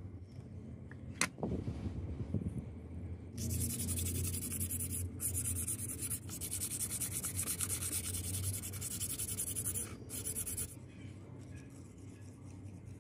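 Sandpaper rubbed by hand back and forth over a flat PVC sheet, a steady scratchy rubbing from about three seconds in until near the end, with two brief pauses, scuffing the surface before it is glued. A single sharp click comes about a second in.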